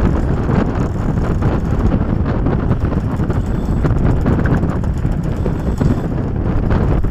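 Strong wind buffeting the microphone on the deck of a sailing yacht under way, a steady low rumble with no distinct events.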